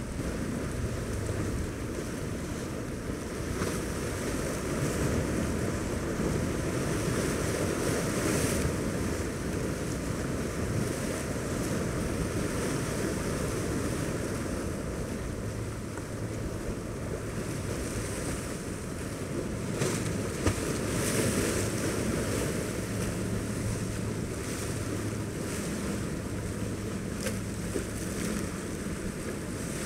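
Wind buffeting the microphone over the wash of open water, with the low, steady drone of passing powerboat engines that becomes more distinct in the second half.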